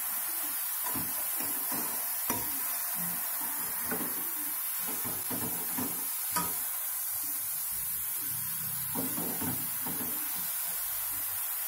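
A slotted metal spoon scraping and knocking against a metal kadhai while stirring grated carrots frying in ghee, with a few sharper knocks, over a steady hiss.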